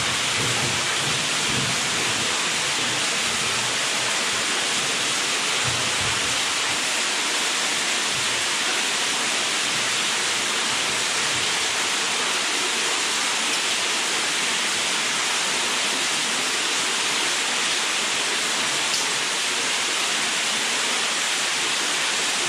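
A steady, loud hiss that stays even throughout, with a few low thumps in the first six seconds.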